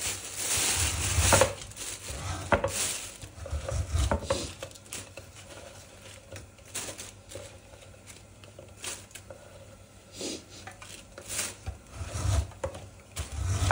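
Manual lever-arm frozen-meat slicer cutting through a frozen meat roll in repeated strokes, one every second or two. Each stroke is a short scrape with a low knock as the blade comes down; the strokes are loudest at the start and again near the end.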